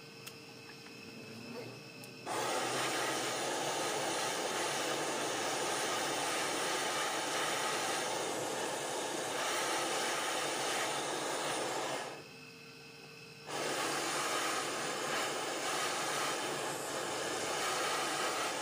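Gas torch burning with a steady noise as its flame heats the dented aluminium alloy wheel rim, a stage of dent repair before the dent is pushed out. The flame starts about two seconds in, cuts out for about a second and a half past the middle, then comes back on.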